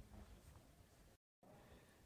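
Near silence: faint steady background hiss, broken a little over a second in by a brief total dropout where the recording is cut.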